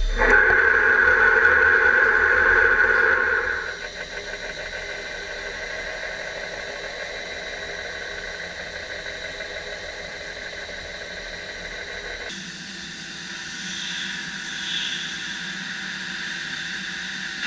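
CNC lathe turning a large spinning metal workpiece. The cutting tool gives a loud, steady, high-pitched whine for the first few seconds, then the machine runs on more quietly with a steady hiss.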